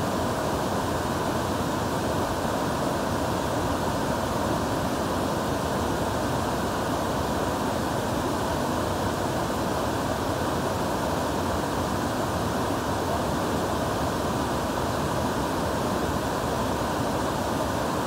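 A tall, multi-tiered waterfall cascading over rock ledges: a steady, unbroken rush of falling water, deep and even, with no breaks or changes.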